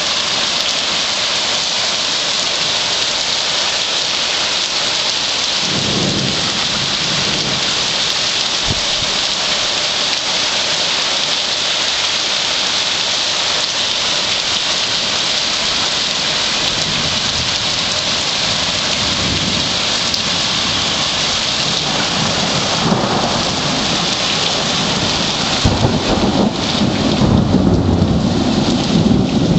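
Heavy downpour hissing steadily. Low rumbles of thunder come about six seconds in and again midway, and a louder rumble builds near the end.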